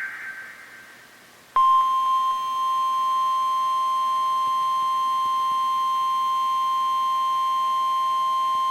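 Emergency alert attention signal: the single steady 1050 Hz weather-radio warning tone cuts in about a second and a half in and holds unbroken. Before it, the echo of the preceding alert header data burst fades away.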